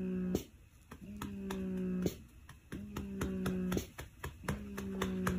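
Steady patting on a baby's back to burp him, about three or four pats a second, while a man hums a low held note in repeated stretches of a second or so with short breaks between.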